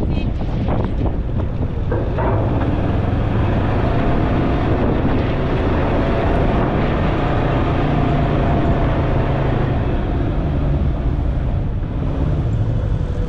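A steady engine drone under heavy wind buffeting on the microphone.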